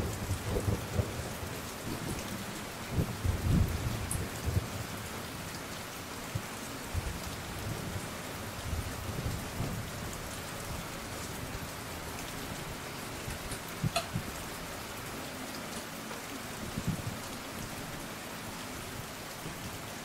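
Steady rain with low rumbles of thunder now and then, the heaviest rumble about three to four seconds in, most likely a rain-and-thunder sound effect for the stage play.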